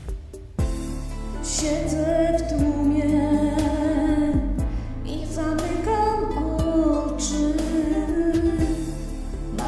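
A song: a sung melody over acoustic guitar accompaniment, the voice coming in about half a second in after a few plucked notes.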